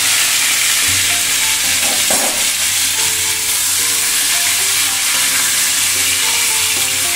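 Boiled potato chunks sizzling in hot oil in a nonstick frying pan, stirred and turned with a silicone spatula; a steady frying hiss throughout.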